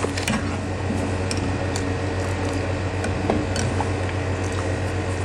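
Steel ladle stirring hot milk in a steel pot, giving a few light scattered clicks against the pot, over a steady low hum.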